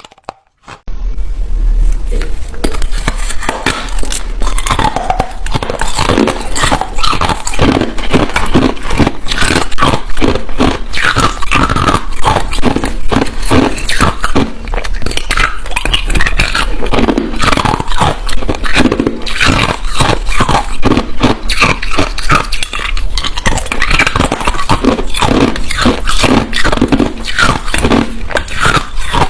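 Close-miked ice crunching: a dense, continuous run of rapid crackling crunches that starts abruptly about a second in, with a low steady hum underneath.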